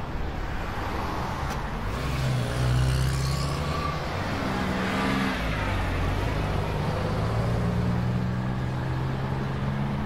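Truck's diesel engine running under way with tyre and road noise, heard from inside the cab. The engine note dips about halfway through and then rises slowly again.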